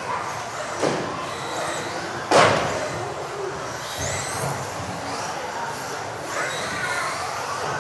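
Electric RC off-road buggies racing on a hall floor, their motors whining up and down in pitch with the throttle. A sharp knock comes about two and a half seconds in, a lighter one just before.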